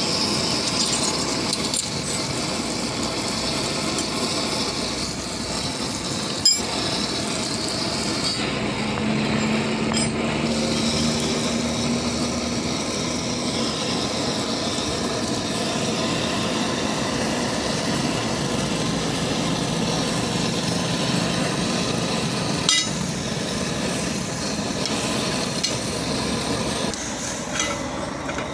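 Steady mechanical background noise with a low engine-like hum for a few seconds in the middle, and a couple of sharp metal clinks from the steel strap-casting jig and ladle used to cast lead straps onto lead-acid battery plates.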